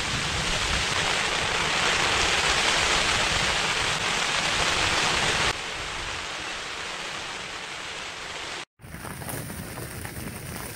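Rain falling steadily on a tent, a continuous hiss. It is loudest for the first five seconds or so, then quieter after a sudden drop, with a brief gap a little before the end.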